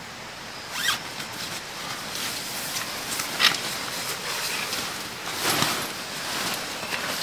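Rustling and handling noise of a tent vestibule's polyester Oxford fabric being pulled out and unfolded, with a few louder swishes about a second in, midway and near the end.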